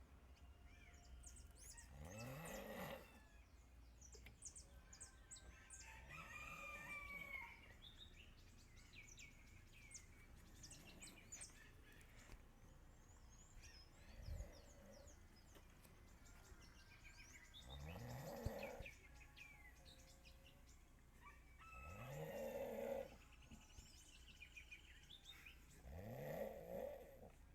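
A man snoring loudly, heard over a phone call: about five long snores a few seconds apart, each rising in pitch, with a long pause near the middle.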